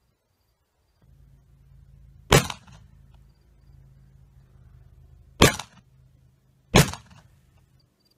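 Three shots from a Colt 1851 Navy-pattern .36 percussion revolver loaded with black powder, each a sharp, loud crack with a short echo; the second and third come about a second and a half apart.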